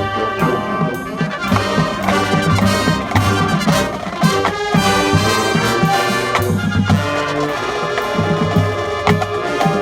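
Marching band playing, brass section (trumpets and trombones) on sustained chords over steady drum hits.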